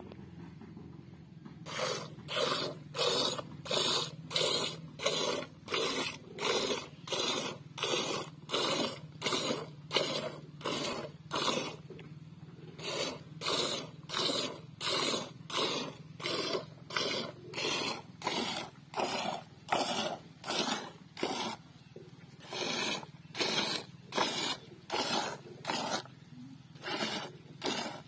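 Milk squirting from a hand-milked udder into a galvanized metal bucket already full of froth: a steady rhythm of hissing squirts, about one and a half a second, beginning about two seconds in and pausing briefly twice.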